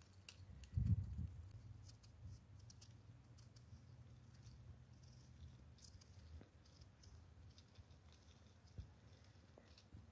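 Faint light clicks and scrapes of a knife peeling fruit by hand, with a dull low thump about a second in.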